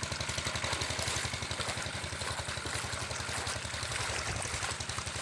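Small boat engine of a ketek running steadily with a rapid low thudding beat.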